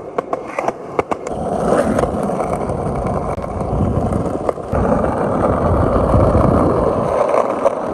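Skateboard wheels rolling on pavement: a few sharp clicks as the board gets going, then a steady rolling rumble.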